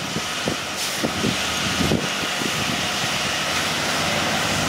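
A 4WD ute's engine working under load as it climbs a soft sand bank, its tyres spinning in the sand. The sound is steady and grows a little louder as the vehicle comes closer.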